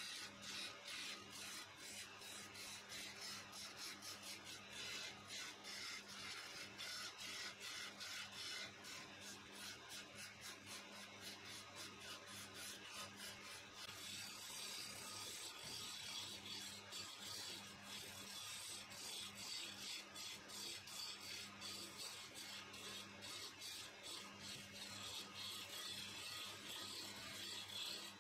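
Hand-held turning chisel scraping and cutting a spinning blank of glued wood layers on a wood lathe: a continuous rasping scrape peppered with many quick ticks, over the steady hum of the lathe motor.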